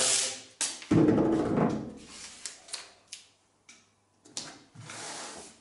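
Painter's masking tape pulled off its roll with a loud rasping rip about a second in, then a few light clicks and rubs as the torn strip is laid and pressed onto a veneered door panel, with a sharp click and a second, quieter rasp near the end.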